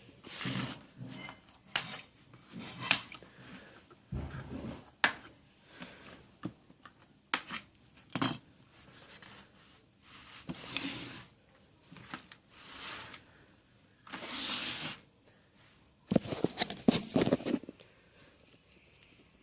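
Toy packaging being handled and opened: cardboard and plastic rustling and scraping in short spells, broken by sharp clicks and snaps. A dense run of clicking and crinkling comes near the end.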